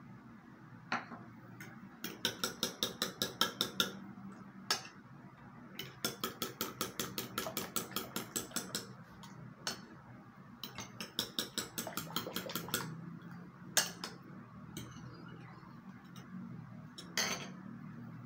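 Metal spoon beating wet ingredients in a ceramic bowl, clinking against its side in three rapid bursts of about seven strokes a second, with single clinks in between.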